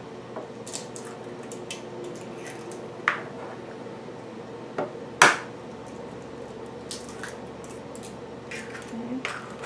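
Hen's eggs being cracked on a glass mixing bowl and their shells pulled apart by hand: two sharp clicks of shell on glass, about three and five seconds in, with faint crackling of shell between.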